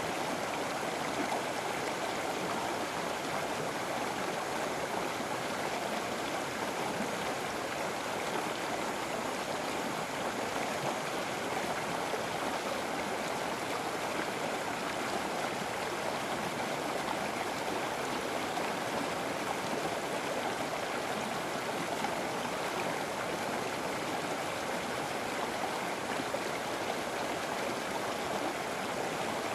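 River water flowing over rocks: a steady, even rush with no breaks.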